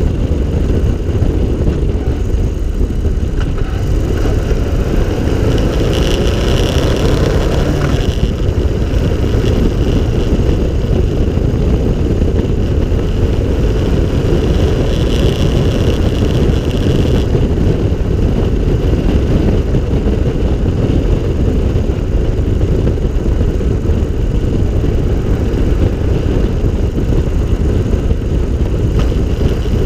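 Open three-wheeled cyclecar on the move: its engine runs steadily under a heavy, even rumble of wind and road noise.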